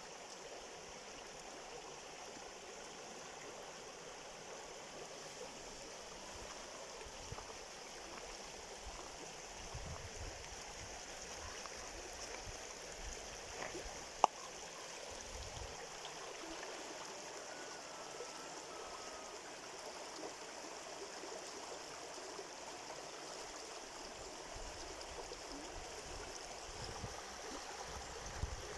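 Steady running water of a stream. One sharp click about halfway through.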